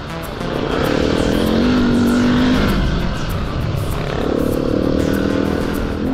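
Husqvarna 701 Enduro's single-cylinder engine pulling the motorcycle along a gravel track, rising in pitch twice as the throttle opens.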